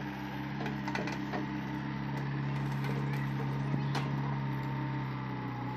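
Tracked excavator's diesel engine running steadily while it digs into a sand pile, with a few light knocks and clanks.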